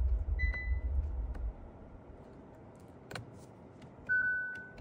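Hyundai Tucson's instrument-cluster warning beeps as the column-mounted gear selector is worked without the brake pedal pressed: a short beep about half a second in, a click about three seconds in, and a louder beep near the end. A low rumble fills the first second and a half.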